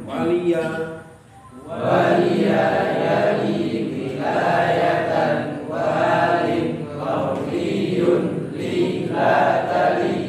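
A group of voices chanting Arabic verb conjugations (tasrif) in unison, in short repeated phrases: a class reciting its morphology tables from memory as a review.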